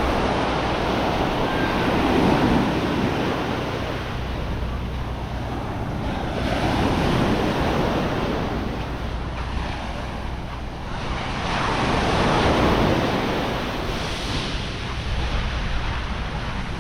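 Sea waves washing onto a sandy beach, surging and drawing back about every five seconds, with some wind on the microphone.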